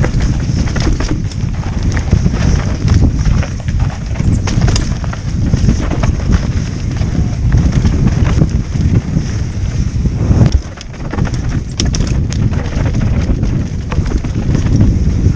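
Wind rumbling on a helmet-mounted camera's microphone during a fast downhill mountain-bike run, with tyres rolling over loose dirt and the bike clattering and knocking over rough ground. The rush briefly drops away about ten seconds in.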